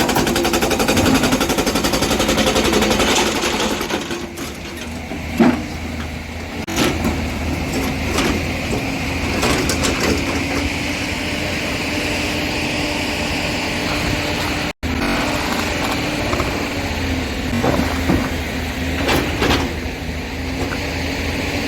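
Heavy diesel excavator engine running steadily. A rapid hammering rattle fills about the first four seconds, and sharp clanks of metal and rock come now and then after it.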